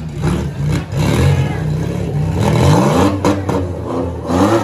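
Demolition derby car engines running and revving, pitch rising about halfway through and again near the end, with a few sharp knocks just after the first rev.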